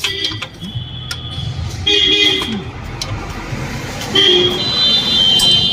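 Vehicle horn honking three times: a short toot at the start, another about two seconds in, and a longer one near the end, over a low background rumble.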